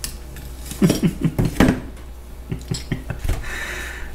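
Light metal clinks and taps of a screwdriver and small brass screws against a Zenith carburetor body as the throttle butterfly screws are set in by hand, a scatter of short irregular clicks.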